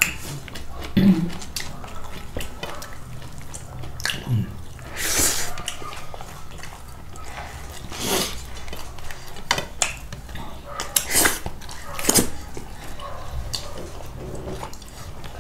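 Eating at a table: utensils clink against plates and bowls, with scattered short mouth noises of eating.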